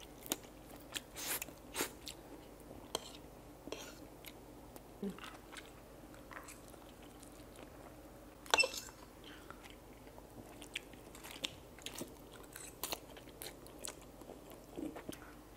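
Two people slurping and chewing instant noodles: scattered short wet slurps and smacks, with one louder one a little past the middle.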